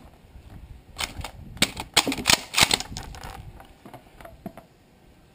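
Mosin-Nagant 91/30 rifle's bolt being worked by hand: a quick run of sharp metallic clicks and clacks over about two seconds.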